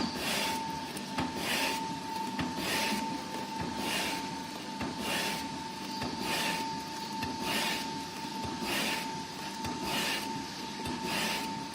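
Automatic frozen meat slicer running, an 8-roll machine: a steady motor or blade whine with a regular swishing stroke a little under once a second as the machine cycles and cuts.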